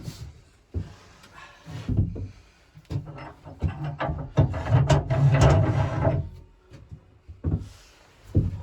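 Wood being handled: several knocks and thumps, with a longer, louder rough scraping rub about halfway through.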